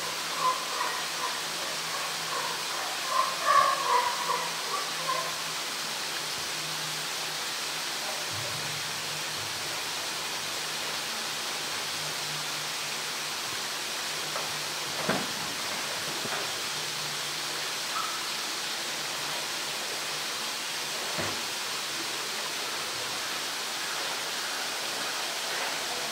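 Steady rushing hiss of running water. Indistinct voices in the first five seconds, and two brief knocks later on.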